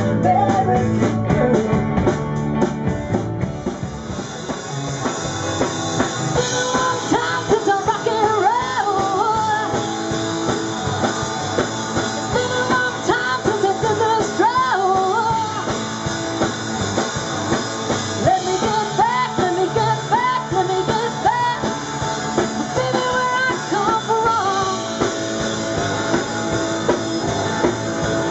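A rock band playing live, with drum kit and a lead melody that bends in pitch over a steady backing.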